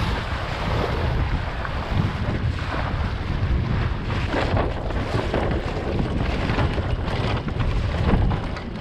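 Wind blowing on the microphone over waves splashing against the bow of a Sunfish sailboat's hull as it sails through choppy water, with irregular splashes, more of them in the second half.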